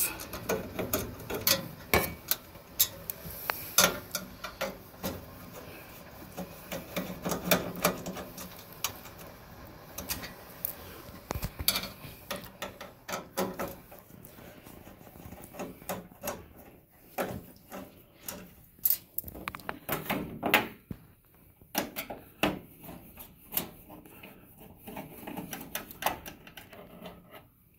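Screwdriver working screws out of the stainless-steel lower front panel of a Rancilio Classe 5 espresso machine: irregular sharp metallic clicks and taps of the tool against the screws and the panel.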